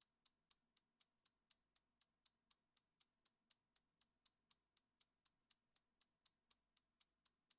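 Faint, fast ticking of a clock-style countdown timer sound effect, about four evenly spaced ticks a second, counting down the time to answer a quiz question.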